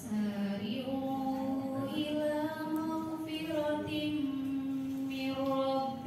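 A woman reciting verses of the Qur'an in the melodic chanted style of tilawah. She holds long drawn-out notes that step slowly up and down in pitch.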